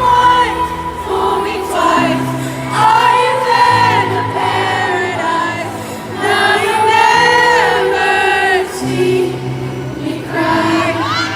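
Live concert music: a woman singing a slow ballad in long phrases over sustained low chords that change every few seconds.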